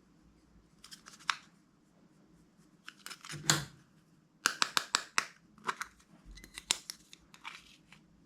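Glossy slime being squeezed and pressed by hand, giving several bursts of rapid crackling clicks and pops with short pauses between them.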